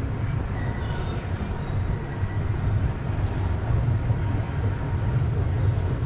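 Steady low rumble of wind buffeting the microphone, with water moving around the river-rapids raft as it drifts along the channel.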